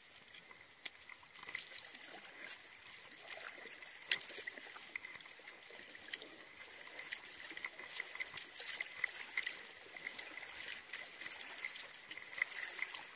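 Paddling a small outrigger canoe: water trickling and splashing around the paddle and hull, with scattered small clicks and splashes.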